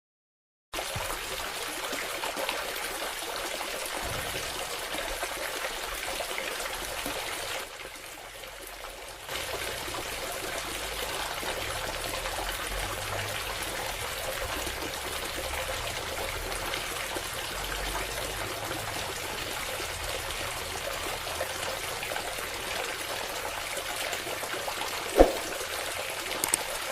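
Water from a small DIY submersible pump trickling and splashing steadily. It drops off for a moment about eight seconds in, and there is one sharp click near the end.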